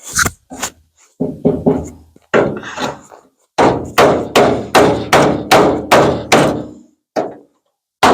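Hammer blows on a block of pallet wood held against the inside of a 1950 Ford F1's steel front fender, knocking out a crease in the bent panel. A few scattered blows come first, then a steady run of about two and a half blows a second.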